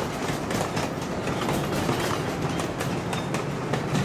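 Steel wheels of a 12-inch gauge riding train's passenger cars rolling past, clicking over the rail joints in a steady rhythm of about three clicks a second over a low rumble.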